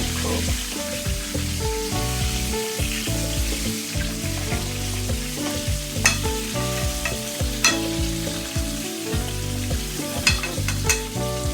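Chicken wings deep-frying in a pan of hot peanut and vegetable oil, a steady sizzle with sharp pops and crackles now and then.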